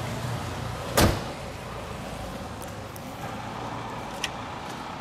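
BMW G30 5 Series bonnet pulled down and shut: one loud thud about a second in.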